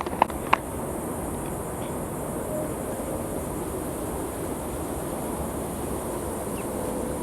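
Steady outdoor ambience dominated by a constant high-pitched insect drone over a broad even hiss, with a couple of sharp clicks just after the start.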